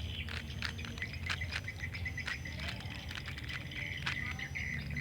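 A GAN 356 speedcube being turned one-handed, its layers giving quick, irregular clicks as they snap into place, which the owner feels is the pull of built-in magnets. A high chirping runs behind it.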